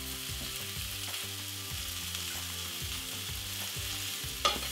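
Sliced bell peppers, red onion, fennel and garlic sizzling steadily in a hot oiled pan. Near the end come a couple of sharp clicks as metal tongs toss the vegetables.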